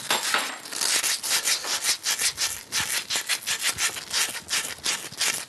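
Emery cloth rubbed briskly back and forth over a copper pipe or fitting in quick, even strokes: cleaning the copper to bare metal before soldering.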